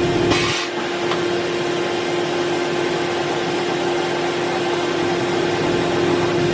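Okuma MB-5000H horizontal machining center running under power: a steady machine hum with a constant tone. About half a second in there is a short hiss, and right after it the low rumble drops away.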